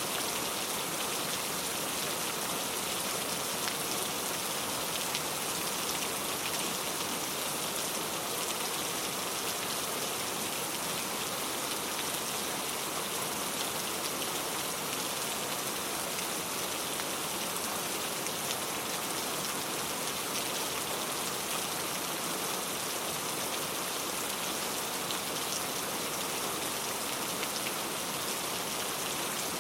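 Steady rain falling, an even hiss of many drops with the occasional distinct drop standing out.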